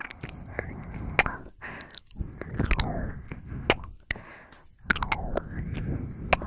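Close-miked mouth sounds: about four breathy swells, each roughly a second long, punctuated by wet lip smacks and kissing clicks.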